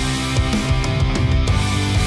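Background rock music with guitar and a driving drum beat.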